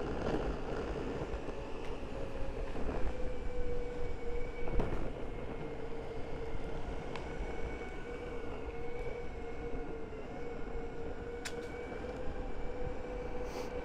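Skateboard rolling at a steady speed: the wheels rumble on the pavement and wind buffets the microphone, with a steady whine holding one pitch from about three seconds in and a few small clicks.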